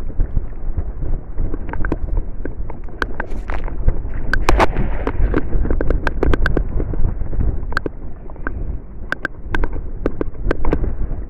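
Wind buffeting the microphone, with a scatter of irregular sharp clicks and knocks from a cast net and its line being handled and gathered for a throw; the clicks come thickest in the middle.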